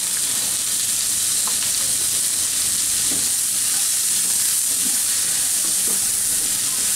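Sliced carrot, bell peppers and onion sizzling steadily in oil in a non-stick pan over high heat, flash-fried to char lightly without softening. A slotted spatula stirs and scrapes them, with a few faint clicks.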